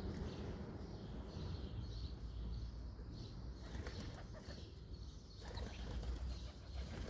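Pigeons flapping their wings, over a steady low rumble.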